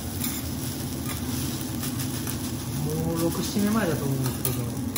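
Metal spatulas scraping and tapping on a hot steel teppan griddle as fried rice is stirred and gathered, over a light sizzle.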